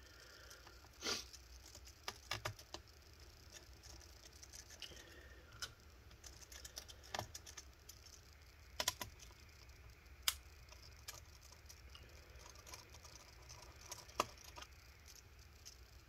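Scattered small clicks and taps, a second or more apart: a PH1 Phillips screwdriver working the small battery screws out of a laptop and the screws being set down on a desk.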